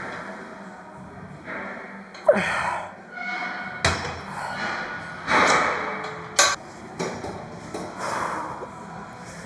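Gym equipment clanking: several sharp metallic knocks and thuds about a second or so apart, with short rushing noises between them.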